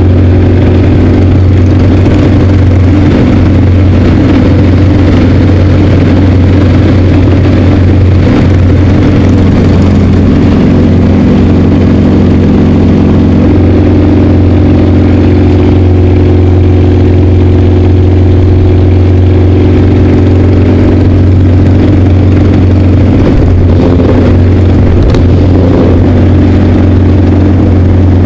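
Yakovlev Yak-50's nine-cylinder radial engine and propeller running steadily and loud, heard inside the cockpit during aerobatic flight. The engine note shifts slightly about halfway through.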